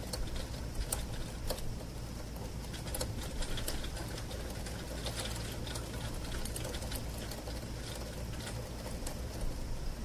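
Raindrops ticking irregularly on a bedroom window pane, heard from inside the room, over a steady low rumble.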